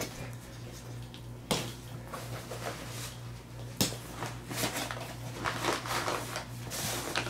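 A tactical backpack being handled and its compartments opened: fabric rustling and scraping, with two sharp clicks, about a second and a half in and near four seconds, over a steady low hum.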